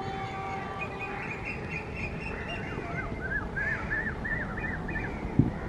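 A bird calling: a run of short high chirps, then about eight quick arched notes in a row, over a steady low background rumble. A single short thump sounds near the end.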